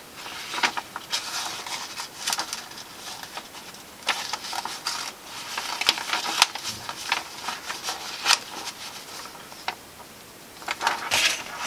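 Sheet of paper rustling and crackling in irregular bursts under the hands as thread is pulled through a paper patch and tied off in half hitches, with small ticks of paper and thread handling.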